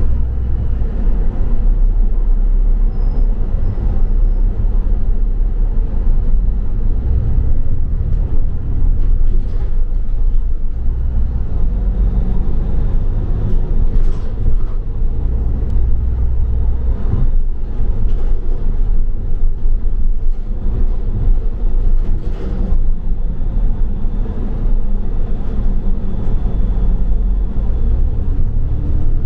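A double-decker bus in motion, heard from on board: a steady, heavy low rumble of engine and road, with a few faint knocks and rattles.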